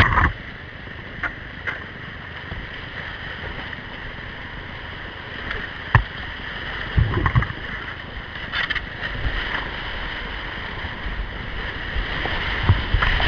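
Whitewater rushing around a kayak running a rocky creek rapid, a steady roar of water. Sharp knocks and splashes come a few times, near the start, about six and seven seconds in, and near the end.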